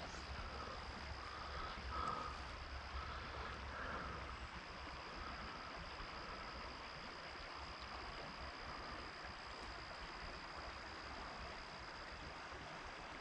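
Faint river ambience: water moving steadily past the angler, with a thin, steady high-pitched whine throughout and a few faint short chirps in the first few seconds.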